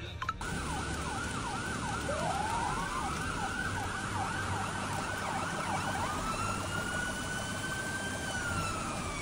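Emergency vehicle sirens over a steady rushing noise. One siren sweeps quickly down in pitch about two or three times a second for the first six seconds. A second siren rises slowly, holds, climbs again, then falls away near the end.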